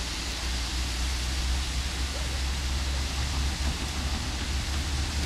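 Electric grade-crossing warning bell ringing over a steady low rumble and hiss; it sounds like only one of the crossing's electric bells is working.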